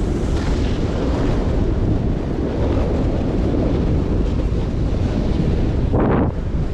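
Wind buffeting an action camera's microphone while snowboarding at about 30 km/h, over the rush of the board sliding on packed snow. A short louder burst of noise comes near the end.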